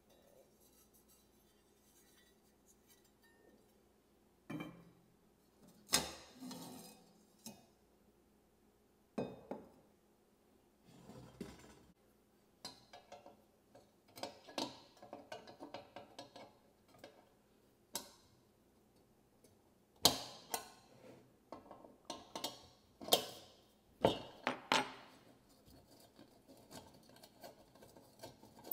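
Metal and glass lantern parts being handled and set down: scattered clinks and knocks, some ringing briefly, with bursts of small rattling taps in the middle and near the end.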